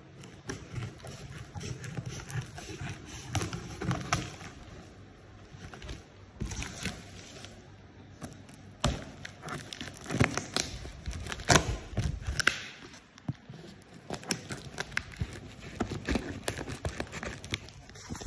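Handling noise from unpacking boxed PAR LED lights: irregular knocks and clicks of the light housings and cardboard, mixed with rustling and crinkling of the packaging.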